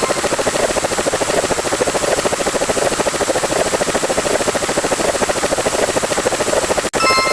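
A rapid, steady fluttering pulse, many beats a second, over a hiss: a looped sound effect. Near the end it cuts out for an instant and a short bright chime sounds as the loop starts over.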